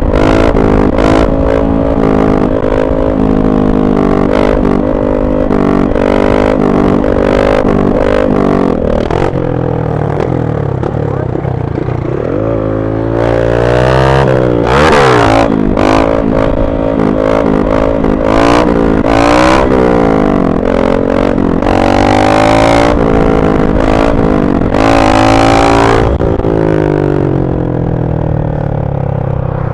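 Motorcycle engine running under way, heard from the bike itself: a steady note at first, then rising and falling several times through the middle as the rider opens and closes the throttle. Irregular gusts of wind noise buffet the microphone throughout.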